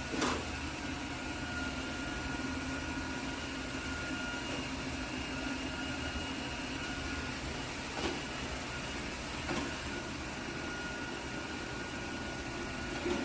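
iRobot Roomba Combo robot vacuum running with a steady motor whine, broken by a few short soft knocks: one at the start, two in the middle and one near the end.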